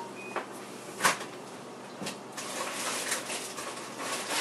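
Kitchen things being handled on a countertop: a few sharp clicks and knocks, the loudest about a second in, then about two seconds of busy rustling and clatter.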